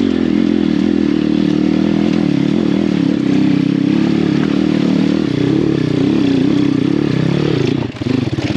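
Apollo pit bike's swapped-in 150cc single-cylinder four-stroke engine running at steady revs in second gear under load up a rocky climb, with stones clattering under the tyres. The revs drop off briefly near the end and then pick up again.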